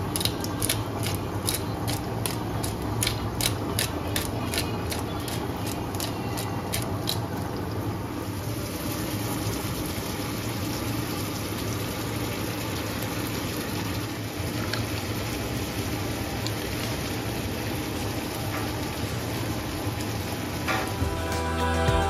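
Food frying in a non-stick pan. For the first several seconds a wooden spoon stirring mushrooms makes sharp clicks about three times a second. After that there is a steadier sizzling hiss once chicken pieces are tipped in, over a steady low hum. Music comes in near the end.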